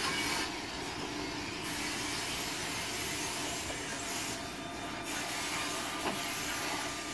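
Newag Griffin electric locomotive pushing its rake of passenger coaches slowly along the track, a steady rolling noise of wheels on rails. A single sharp click about six seconds in.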